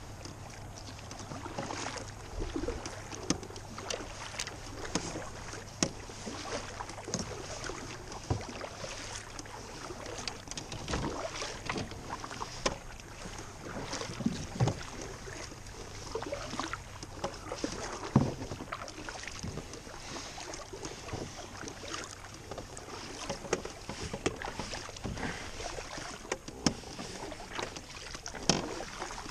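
Water sloshing and splashing against a small canoe's hull, with scattered light knocks and clicks of fishing gear against the boat, over a faint steady low hum.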